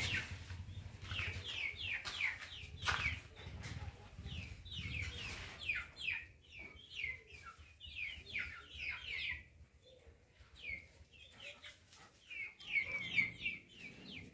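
A flock of chickens in a poultry house calling: many short, high, falling calls overlapping, thinning out in the middle and crowding again near the end. A couple of knocks in the first few seconds.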